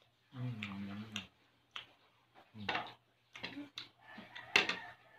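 Close-up eating sounds from people eating with their fingers: chewing and lip-smacking heard as a series of short, sharp clicks. A brief hummed "mm" comes about half a second in.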